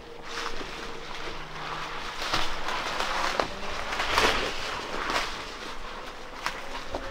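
Footsteps through forest undergrowth, with spruce branches brushing and rustling past, in swells about once a second. A few sharp snaps of twigs come near the end.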